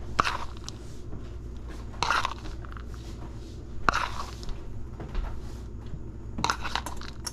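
Metal spoon scooping chopped pecans from a plastic bowl and dropping them into tart shells in a metal mini muffin tin: short crunchy scrapes about every two seconds, over a low steady hum.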